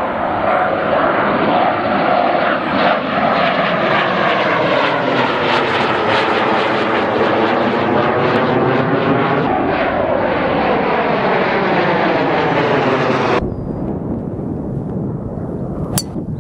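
Military jet flying overhead: a loud, steady rushing roar whose tone sweeps slowly as it passes, cut off abruptly about 13 seconds in. Near the end comes a single sharp crack of a golf club striking the ball off the tee.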